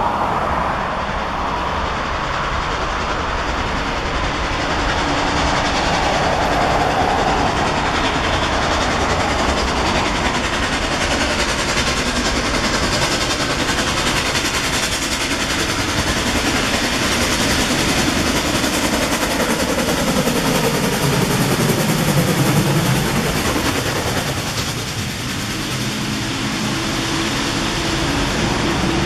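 Norfolk & Western class J 611, a 4-8-4 steam locomotive, pulling its passenger train over a bridge at speed: a steady, loud rush of exhaust and running gear. Near the end the passenger cars roll past with steady wheel and rail clatter.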